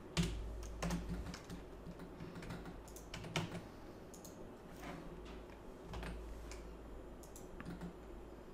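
Computer keyboard being typed on: irregular key taps, a few at a time, with a sharper tap near the start and another about three and a half seconds in.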